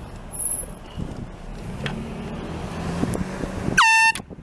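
Car engine and road noise heard from inside the car. Near the end, a handheld can-type air horn gives one short, loud blast, its pitch dropping at the start and then holding, and it cuts off abruptly.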